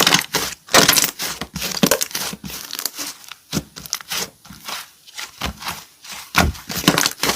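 Slime being squeezed and pressed by hand, giving a quick, irregular run of short crackles.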